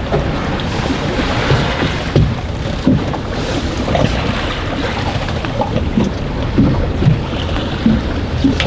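Strong wind of over 20 knots buffeting the microphone on a boat at sea, a steady rushing noise with irregular low thumps, amid the sound of waves.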